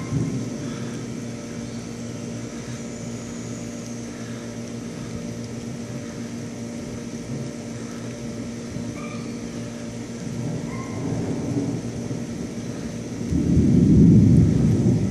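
Distant thunder rumbling low, swelling about ten seconds in and loudest near the end, over a steady hum.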